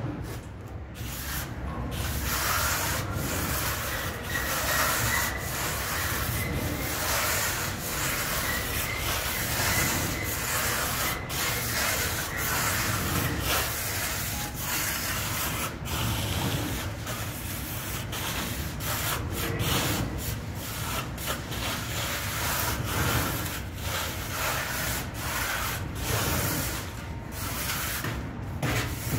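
Hand plastering float rubbed over a fresh plaster wall in quick strokes while finishing the surface. It makes a steady rough rubbing broken by many brief pauses.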